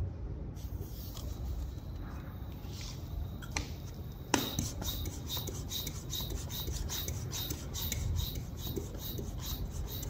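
Hand floor pump inflating a 26x4-inch fat bike tyre. After a sharp click about four seconds in come quick, even strokes of rasping air, about three a second.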